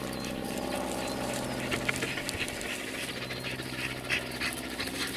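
Dogs panting and moving through dry grass as a black Labrador and a border collie run up close, over a steady low hum.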